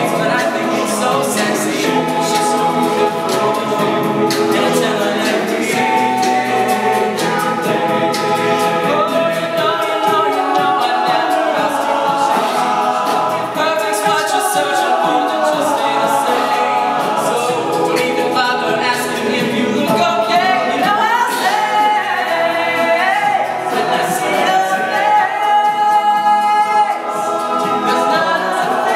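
All-male a cappella group singing in close harmony: a lead voice over the others' sung backing parts, with no instruments.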